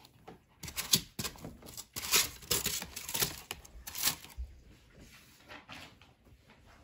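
A Pomeranian scratching and pawing at styrofoam packing and the cardboard box it stands in: a run of scratchy rustling that stops about four seconds in, followed by fainter scattered rustles.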